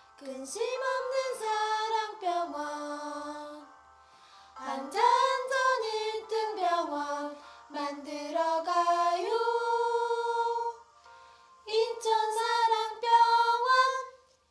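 Music with voices singing in three phrases with short pauses between them. It stops shortly before the end.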